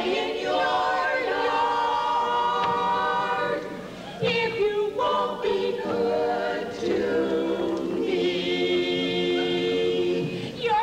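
A chorus singing long, held chords without instruments, in several phrases with short breaks between them.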